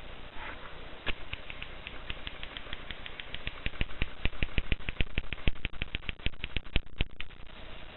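Mercedes portable typewriter being typed on: a run of sharp key clacks starting about a second in, coming faster as it goes, and stopping about a second before the end.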